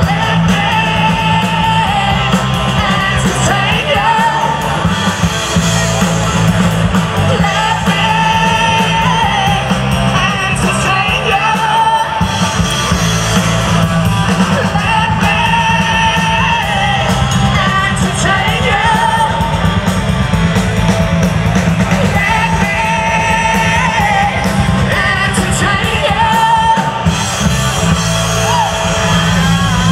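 Live rock band: a woman sings lead over electric guitar, bass guitar and drums.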